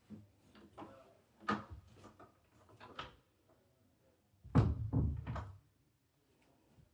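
A few light knocks and clicks, then a louder, heavier thump in two parts about four and a half seconds in.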